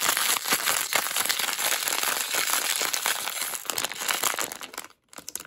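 Crinkly plastic blind-box bag crumpled and rustled in the hands as it is worked open: a dense crackling rustle that stops near the end.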